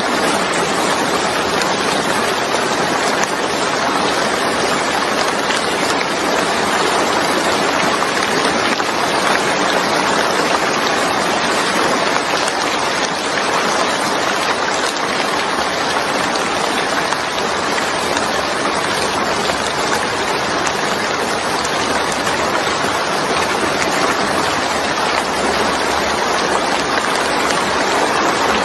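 Steady rain falling on a wet surface, a dense, even hiss of countless drops with no letup.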